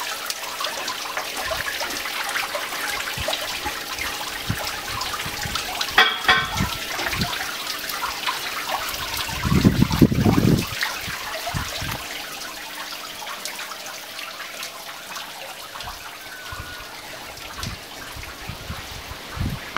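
Water trickling and splashing steadily from a small decorative waterfall into a pool. A few low thumps come about halfway through.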